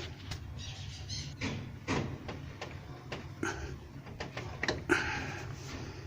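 Engine being turned over by hand with a wrench while the valve cover is off: scattered metallic clicks and knocks, the loudest nearly five seconds in, over a low steady hum.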